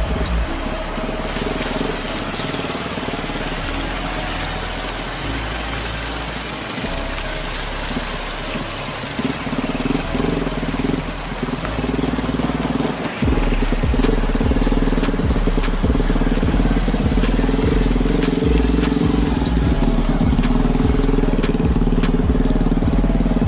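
Road traffic: a loaded Mitsubishi Fuso dump truck's diesel engine working hard up a slope, with a small pickup and motorcycles passing. It gets louder about halfway through as they come close.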